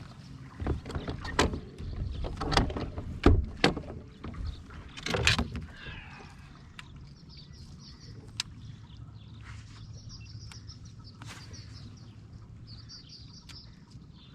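Knocks and clunks from gear being handled on a fishing boat, the loudest about three seconds in. These give way to a steady low hum with small birds chirping over it.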